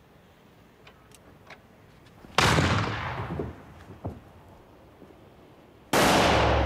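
Two shotgun blasts about three and a half seconds apart, each sudden and loud with a ring that dies away over about a second. A few faint clicks come before the first.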